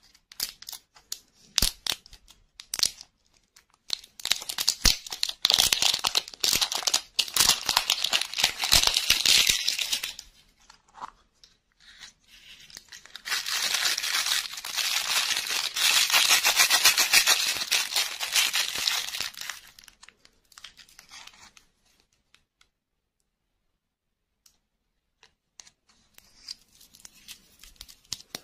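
Thin plastic candy wrapper being torn and peeled off a large ball lollipop, crackling and crinkling in two long stretches, with a few sharp clicks before them and lighter crinkles near the end.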